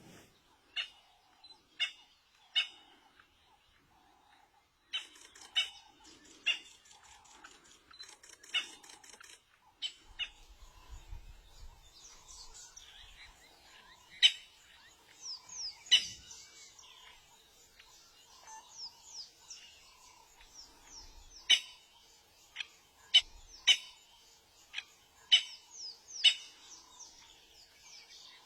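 A bird chirping: short, sharp chirps repeated at irregular intervals, with fainter calls in between.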